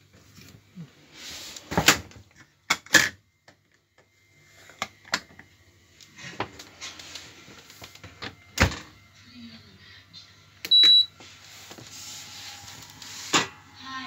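Kenwood dishwasher's control panel giving one short, high beep about eleven seconds in, as it is switched on, among several sharp clicks and knocks from handling the machine and a faint low hum.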